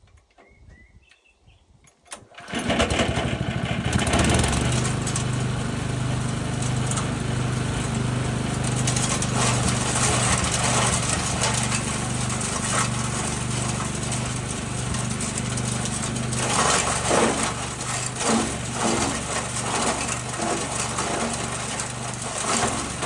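Small petrol engine of an Eliet Minor garden shredder starting up about two seconds in and then running steadily, a little more unevenly toward the end. Its throttle lever is stopped short of full by a nut, so the engine does not rev up fully, which the owner blames for the shredder jamming.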